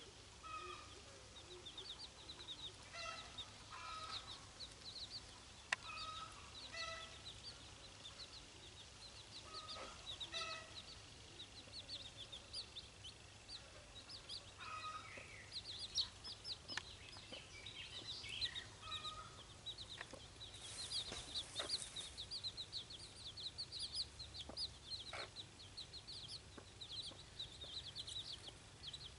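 A mother hen clucking in short clusters every few seconds over the continuous high, rapid peeping of her young chicks.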